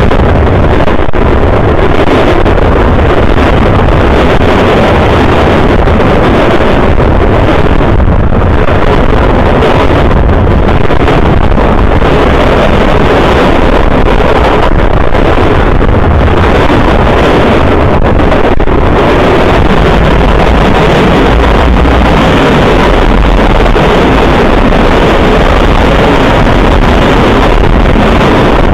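Freight train passing right beside a ground-level camera: a loud, steady rumble of wheels and cars with wind buffeting the microphone.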